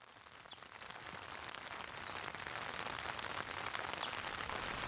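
Steady rain pattering on the tent fly, heard from inside the tent, with the odd sharper drop tick; it fades in at the start and grows steadily louder.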